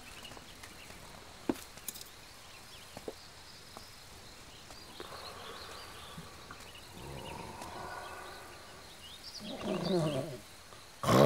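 A man snoring in his sleep: two drawn-out snores about seven and nine and a half seconds in, the second louder. A sudden loud burst comes right at the end.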